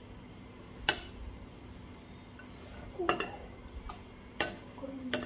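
Metal serving spoon clinking against a white ceramic serving bowl and plates as curry is spooned out. About five sharp clinks, the loudest about a second in.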